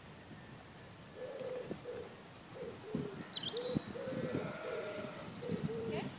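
A pigeon cooing in repeated low phrases, starting about a second in, with a few brief high chirps from a small bird partway through.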